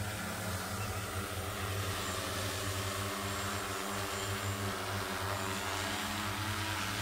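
Steady hum of a JOYANCE multirotor agricultural sprayer drone's electric motors and propellers as it hovers low and comes in to land.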